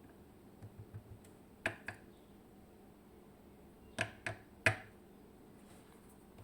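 Small metal parts of a disassembled lock cylinder clicking as they are handled: a few faint ticks, a couple of sharp clicks a little under two seconds in, and three sharper clicks about four to five seconds in.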